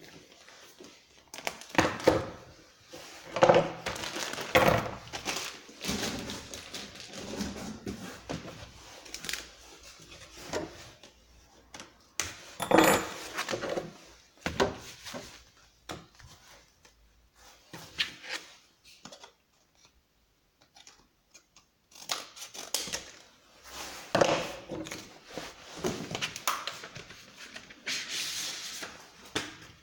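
Irregular knocks, clinks and rustling from chainsaw parts and packaging being unpacked and handled, with a short lull about twenty seconds in.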